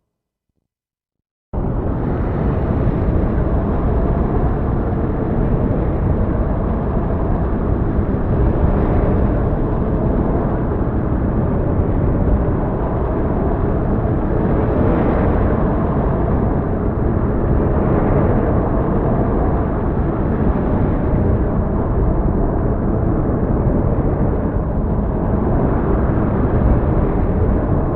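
Heavy storm noise: a dense, steady rumble of rain and wind with a few gentle swells, starting abruptly after a moment of silence.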